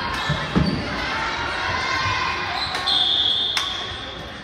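Game sounds in a gym: a ball thudding and shoes squeaking on the court over spectators' voices, with a short high-pitched tone about three seconds in.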